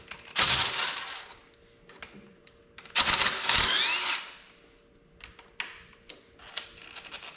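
Cordless drill running in two short spells of about a second each, backing out the bolts of the engine side cover on a Honda ATC 185S three-wheeler. The second run rises in pitch. Small clicks of metal follow.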